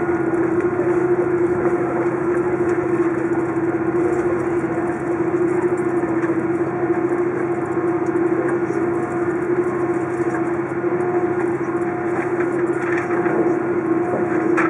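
Airbus A330 taxiing, heard from inside the passenger cabin over the wing: a steady jet-engine hum with a constant drone and the rumble of the rolling airliner.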